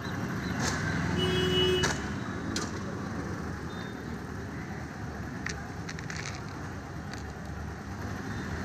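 Steady rumble of road traffic passing close by, with a short high tone about a second in and a few light clicks.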